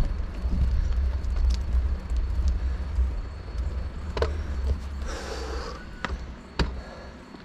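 Wind buffeting on a GoPro's unshielded microphone during a bike ride, a low rumble that eases off toward the end. A few sharp clicks sound over it in the second half.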